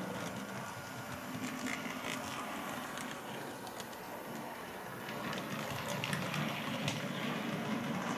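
Model trains running on the layout: a steady whir of small motors and wheels on track with scattered light clicks, growing a little louder about five seconds in.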